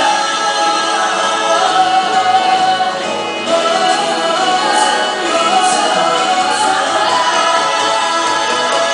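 Music: a Mandarin pop ballad's sung passage with choir-like singing and no clear lyrics, over steady accompaniment.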